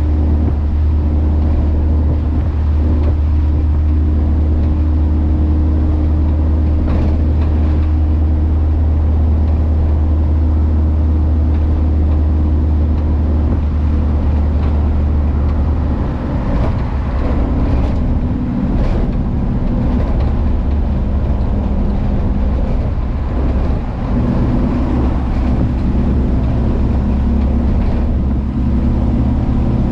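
VW Kombi's engine and exhaust running steadily under way, a loud low drone; about halfway through the drone shifts and turns rougher as the engine note changes.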